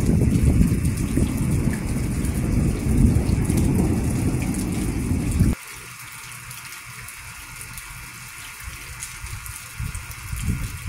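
Thunderstorm: rain hiss under a loud low rumble that stops abruptly a little past halfway, leaving only the quieter rain. Low rumbling gusts come back near the end.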